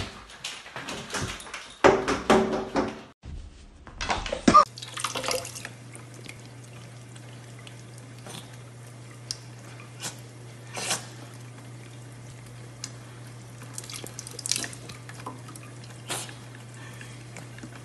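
Window blinds clattering and rattling, with two loud crashes, as a pet tangled in them thrashes about. Then a kitchen faucet runs a thin steady stream into the sink, with a constant low hum and a few faint drips or ticks.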